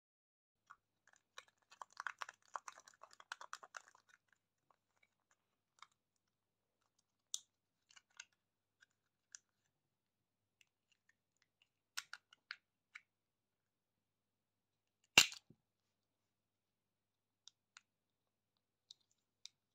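Close-miked crackling and clicking from sweets and their packaging. A dense run of crackles lasts about two seconds near the start, followed by scattered single ticks and one sharp, much louder click about fifteen seconds in.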